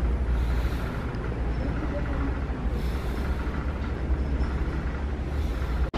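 Steady low rumble of a large store's indoor ambience, with faint, indistinct voices in the background. The sound drops out for an instant just before the end.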